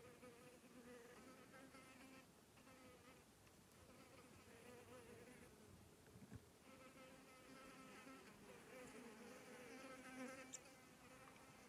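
Faint, wavering buzz of a flying insect, in two long stretches with a short break about halfway through.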